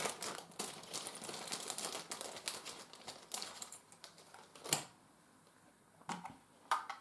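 Plastic crinkling and rattling clicks as a small plastic toy-drone transmitter and its clear plastic packaging are handled, dying down about five seconds in, followed by a few separate sharp clicks.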